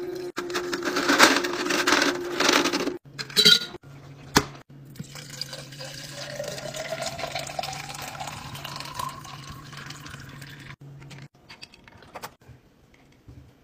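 Ice rattling and clinking into a glass tumbler, then a drink poured from a pitcher into the glass, the pour rising steadily in pitch as the glass fills, over a steady low hum. A few light clicks follow near the end as the lid goes on.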